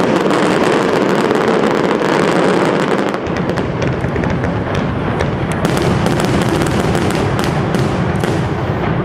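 Castillo aerial fireworks display: a dense, unbroken barrage of crackling and bangs from shells bursting overhead, with a deeper rumble joining in about three seconds in.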